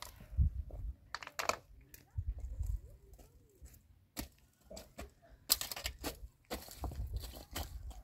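Footsteps crunching irregularly on gravel and loose stones, with a low rumble of wind on the microphone.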